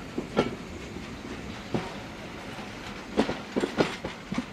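Passenger coaches' wheels clacking over rail joints as the train rolls past and draws away: sharp knocks in small groups over a steady rumble, with a quick cluster of four about three seconds in.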